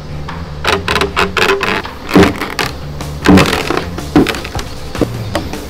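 Background music with a series of sharp wooden knocks and cracks, the loudest about two and three and a half seconds in.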